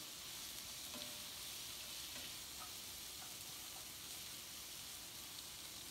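Sliced vegetables sizzling steadily in a hot frying pan as they are sautéed, with faint scrapes and taps of a slotted spatula stirring them.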